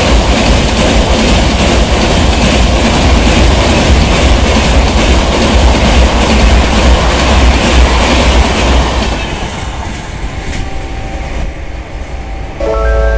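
Double-decker express passenger coaches passing close at speed: a steady, loud rumble of wheels on rail with clickety-clack over the rail joints. The noise falls away as the last coach passes, about nine seconds in, and music begins just before the end.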